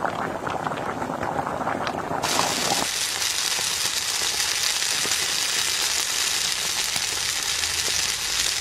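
Bubbling and crackling in a frying pan, changing abruptly about two seconds in to a steady, high sizzling hiss.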